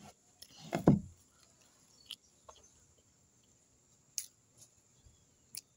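Small clicks and mouth sounds of someone eating with their fingers and chewing, with one louder dull thump about a second in.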